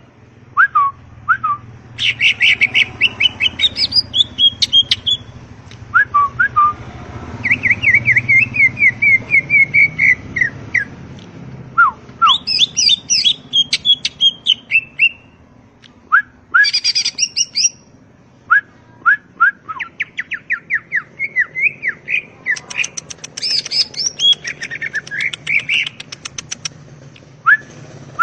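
Cucak ijo (greater green leafbird) singing a long, varied song of fast repeated chirps, trills and whistled notes that glide up and down, in phrases broken by short pauses.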